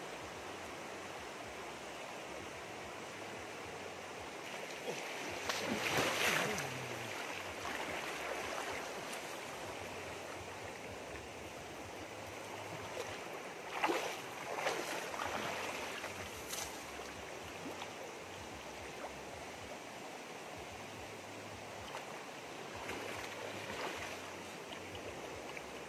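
Shallow rocky stream running steadily, with a few louder splashes as a person wades in it and works the water with his hands.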